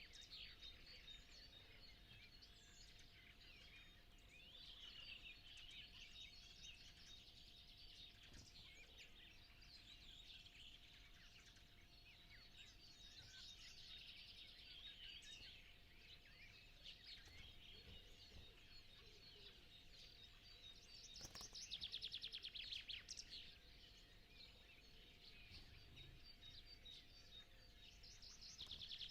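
Faint dawn chorus of many songbirds singing over one another in spring countryside. A louder, rapid trill stands out about three quarters of the way through.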